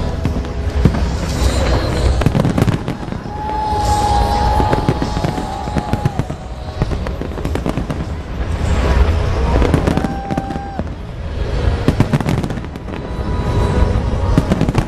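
Large fireworks display: a continuous barrage of bangs and crackling from shells bursting overhead, swelling and easing in waves, with music playing underneath.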